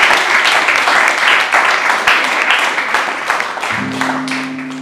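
Audience applauding: a dense patter of many hands clapping. Near the end the clapping thins out and a guitar chord is struck and left ringing.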